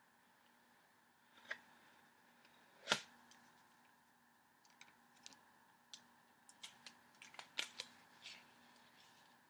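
Paper and card being handled on a tabletop: a soft tap about a second and a half in, a sharper knock about three seconds in, then a scatter of light ticks and rustles over the last few seconds, all faint over a low room hum.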